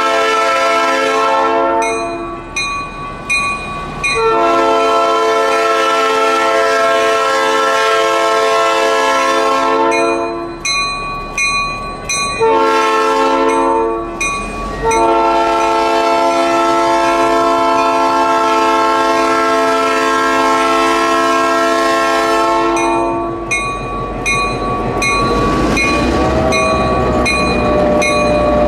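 Nathan P3 air horn on an EMD GP10 diesel locomotive sounding the grade-crossing signal: a long blast ending about two seconds in, another long blast, a short one and a final long one. Near the end the locomotive's diesel engine and its wheels on the rail rumble loudly past at close range.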